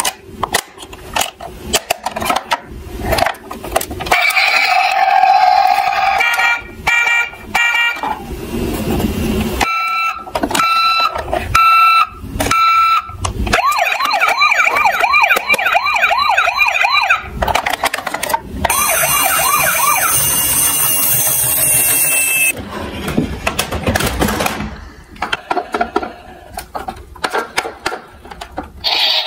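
Battery-operated toy ambulance playing electronic sound effects through its small speaker: repeated beeping tones, then a fast warbling siren. Plastic clicks and clatter of the toy being handled come at the start and again near the end.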